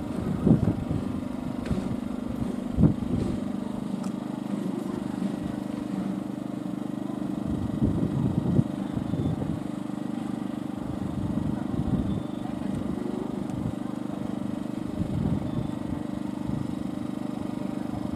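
A small engine running steadily at an even hum, with wind buffeting the microphone now and then.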